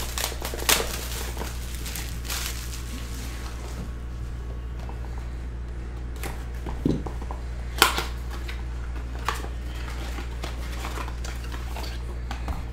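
A cardboard trading-card box and its wrapping are handled and opened by hand: scattered rustles and scrapes with a few sharp clicks, over a steady low hum.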